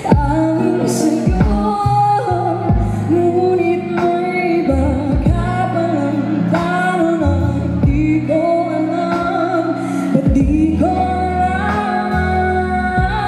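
A woman sings a Filipino song live into a handheld microphone over an instrumental accompaniment with a slow drum beat, heard through stage speakers.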